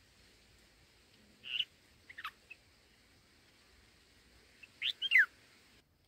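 Red-whiskered bulbuls calling at the nest while a chick is fed. A short chirp about a second and a half in and a quick down-slurred call just after two seconds, then a louder cluster of three or four falling notes near the end.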